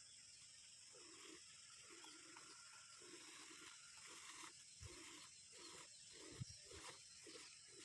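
Faint rhythmic squirts of milk into a bucket as a cow is milked by hand, about two strokes a second, with a few soft thumps in the second half.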